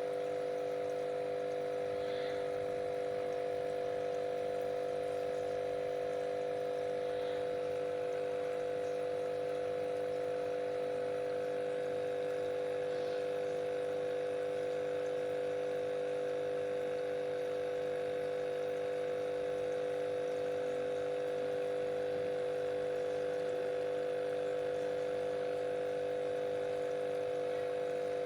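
Aquarium pump humming steadily with a fixed electric drone, over faint trickling water and a few soft drips.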